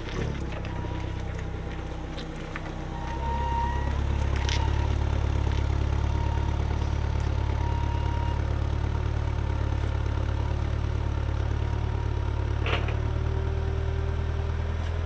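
Hyster LPG forklift's engine running; it gets louder about three seconds in and then holds a steady note.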